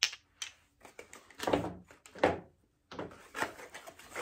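Glass Essie nail polish bottles being handled and rummaged through: a sharp knock as one is set down, then a run of knocks and rustles as the next bottle is picked out.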